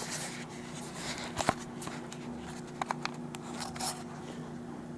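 Faint handling noise from the Canon XA10 camcorder's plastic body being turned in the hand: light rubbing with a few small clicks, about a second and a half in and twice near the middle, over a steady low hum.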